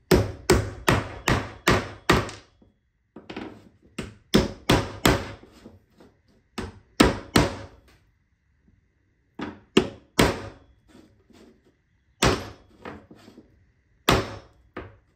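Claw hammer tapping small brass hex nuts into the holes of a seacock backing block to seat them flush. It strikes in runs of several quick blows, about three a second, with short pauses between the runs and a single blow near the end.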